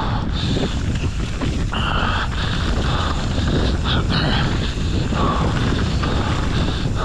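Wind buffeting the microphone: a steady, fluttering rumble, with fainter higher sounds coming and going over it.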